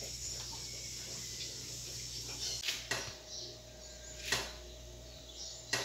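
Rural outdoor ambience with a steady high hiss over a low hum, giving way after a cut to quieter indoor room tone with a faint steady hum. Four short sharp knocks of handling come in the second half.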